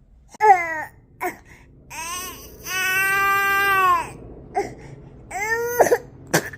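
A young child with a cough and runny-nose cold crying: several short wavering cries, then a long drawn-out wail of over a second near the middle, and another cry near the end. There is a sharp click just before the end.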